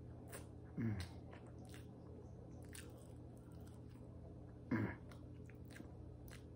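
A man chewing a mouthful of food with faint wet mouth clicks. Twice, about a second in and again near five seconds, there is a short low hum from him that falls in pitch.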